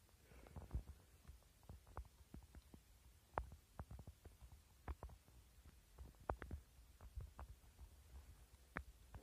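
Faint footsteps of someone climbing on foot: irregular small knocks, about two a second, over a low steady rumble.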